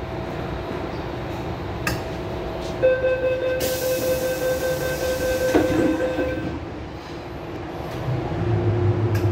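Metro-Cammell M-Train (MTR Island Line EMU) at a station stop: the door-closing warning tone sounds for about three and a half seconds with a hiss, the doors shut with a knock about halfway through, and near the end a low hum of the traction motors rises as the train starts away.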